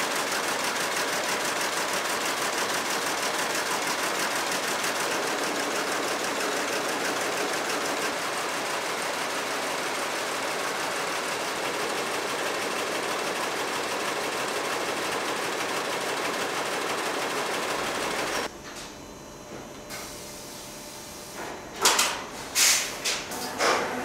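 Power weaving loom running, a rapid, even mechanical clatter that cuts off abruptly about 18 seconds in. A few sharp knocks follow near the end.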